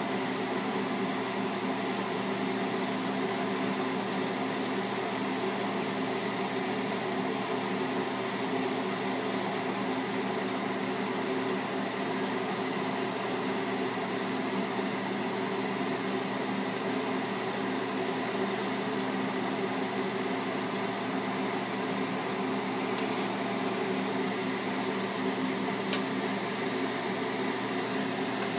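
A glassworking bench torch burning steadily with an even hiss, over a constant motor hum. A few faint ticks come near the end.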